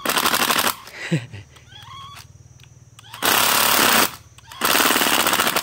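National 12 V cordless oil-pulse (hydraulic impulse) driver driving a screw, triggered in three bursts of rapid pulsing, each under a second long.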